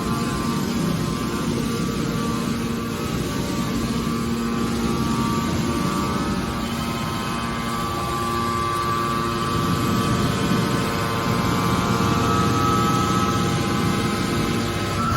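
Hydraulic car body baler running: a steady machine drone with a whine over it that grows louder and rises slightly in pitch over the last few seconds.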